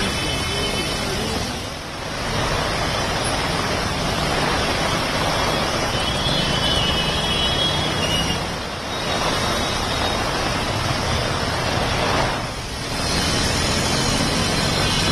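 Steady rushing noise of heavy rain mixed with road traffic on wet streets, dipping briefly three times.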